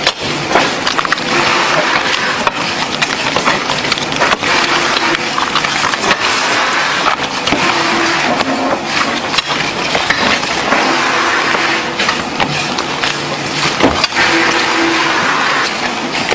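Cardboard playing-card boxes handled at speed by hand: a dense, quick run of card-stock rustling and sharp clicks.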